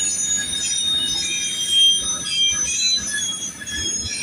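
Coal train rolling past, its steel wheels squealing against the rails in several high, shifting tones over a steady rumble.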